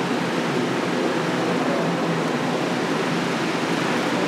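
Steady rushing hiss of water spray from a pressure washer, hosing down a dirt bike.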